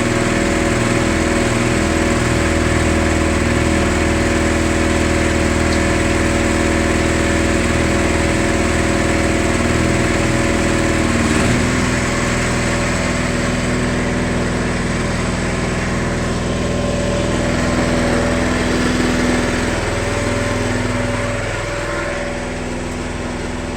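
Gas engine powering a baler's hydraulic cylinder, running steadily. Its note shifts about halfway through, and it drops a little in loudness then and again near the end.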